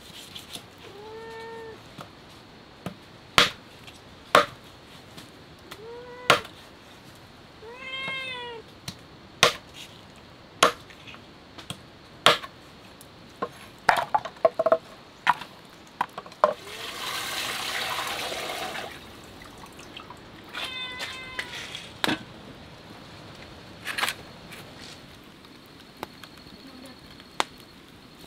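A cat meowing several times, each call rising and falling in pitch. Sharp knocks come at irregular intervals throughout, and about two thirds of the way through there is a couple of seconds of rushing, splashing noise.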